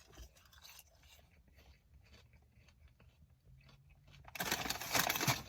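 Faint chewing of fried food, then about a second of loud crunching close to the microphone near the end.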